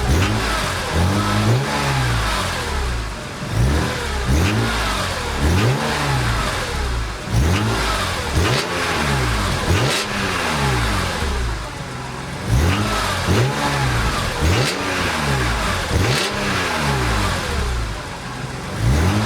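BMW E46 M3's S54 straight-six engine being free-revved in quick blips, about a dozen times, each rev climbing and dropping back toward idle. The engine is warmed up after idling for 10–15 minutes.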